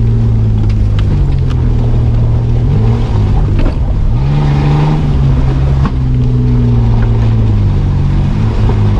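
Mitsubishi Pajero's engine revving up and falling back repeatedly as it drives a muddy off-road forest track, heard from inside the cab, with a few sharp knocks from the vehicle over the ruts.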